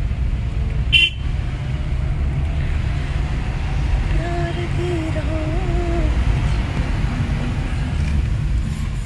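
Steady low rumble of a moving car heard from inside the cabin: engine and road noise. A vehicle horn sounds for about two seconds in the middle, with a brief sharp click about a second in.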